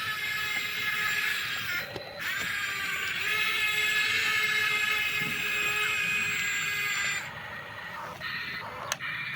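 Small electric gear motors of a remote-control toy excavator whining as it runs. The whine stops briefly about two seconds in, comes back slightly rising in pitch, and breaks off about seven seconds in into short, uneven spurts.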